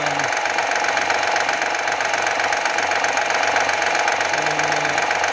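Honda Accord 3.5-litre V6 idling with its timing cover off, with a loud steady knock running through it. The mechanic traces the knock to too much play in the timing-belt tensioner; it sounds like a failed connecting-rod bearing.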